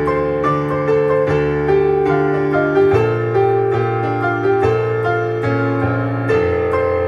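Instrumental music from a keyboard, likely an electric piano: held chords with a moving melody on top and low bass notes that change twice. There is no singing.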